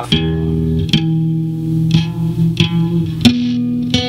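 Handmade four-string cigar box guitar being picked, its notes and chords struck about once a second and left to ring.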